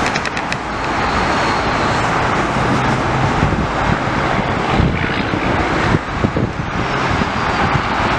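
Metro-North M8 electric railcar train rolling away over the rails and switches: a steady rumble of wheels on track with a low hum, and a few sharp wheel clicks just after the start.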